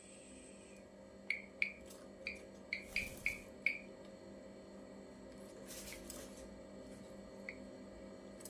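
Ashy drongo calling: a quick run of seven short, sharp notes, then a single note near the end.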